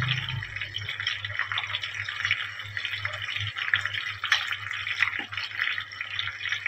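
Breaded chicken pieces deep-frying in hot oil in a kadhai: steady, dense sizzling and crackling, with a low hum underneath.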